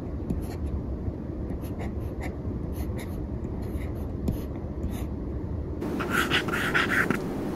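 Stylus tip scratching across the reMarkable 2's textured e-ink screen in short handwriting strokes. About six seconds in, the scratching gets louder and quicker for a second or so.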